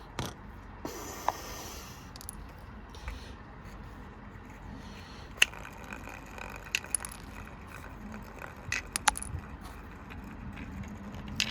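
Precept washing machine running with a golf tee loose in its drum: a low steady hum with scattered sharp clicks and light rattles, about half a dozen over the stretch.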